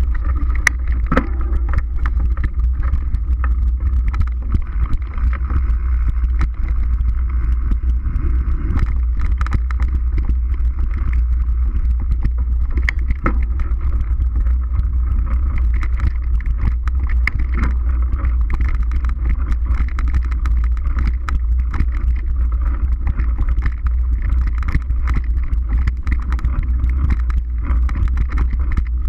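Wind buffeting a mountain bike's action-camera microphone as a steady low rumble, with frequent short clicks and rattles from the bike and tyres running over the dirt trail.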